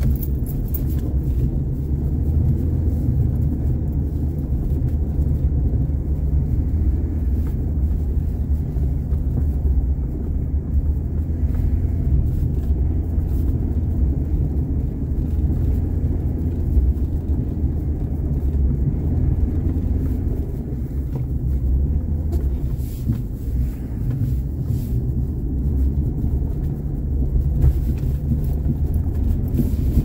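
Car driving with a steady low rumble of engine and road noise.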